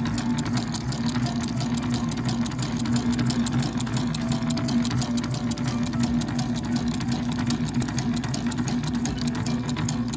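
Electric sewing machine running steadily at speed: a constant motor hum with very fast mechanical ticking.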